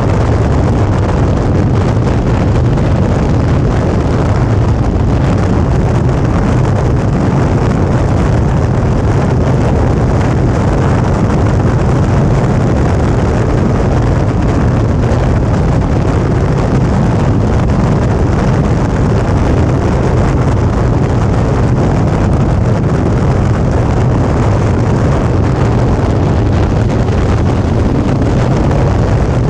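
Suzuki V-Strom 650's V-twin engine running steadily while riding at a constant speed, mixed with wind rushing over the camera microphone. The low engine note and the wind hold level with no shifts or stops.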